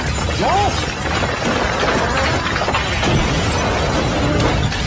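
Sound effects of a burning street after an explosion: a steady rumbling crackle of fire with small shattering and debris sounds, and a brief distant cry about half a second in.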